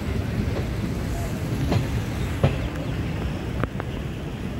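Passenger train running along the track, heard from on board: a steady low rumble of wheels on rails, with a few sharp clicks over the course of the few seconds.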